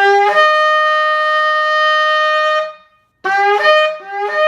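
A 34-to-37-inch shofar blown in two long blasts. Each blast opens on a brief lower note and jumps up to a held higher note; the second wavers between the two before settling.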